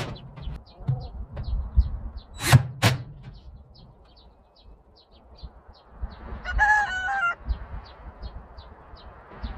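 A rooster crows once, about a second long, some six seconds in. Before it there are two sharp knocks close together, and short high chirps repeat steadily about three times a second over a low rumble.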